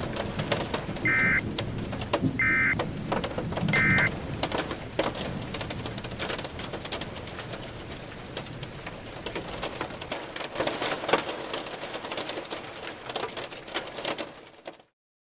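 Three short warbling data bursts of the Emergency Alert System's end-of-message tones, about a second and a half apart. Underneath is steady rain with crackles of thunder, which fades out near the end.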